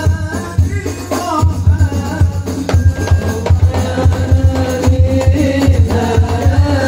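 Sholawat sung by a group of young voices into microphones, with rebana frame drums beating a quick rhythm of deep thumps underneath.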